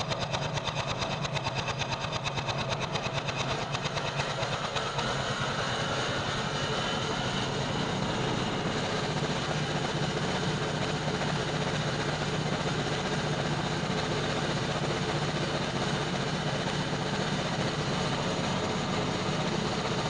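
Small gas engine of a Woodland Mills HM122 portable bandsaw mill running steadily at working speed, with a pulsing beat in the first few seconds that settles into an even drone as the band blade cuts along an ash log.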